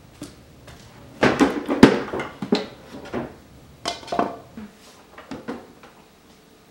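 A metal ladle clinking and scraping against a glass mixing bowl as risen yeasted waffle batter is stirred: a busy run of clinks about a second in, then a few lighter knocks.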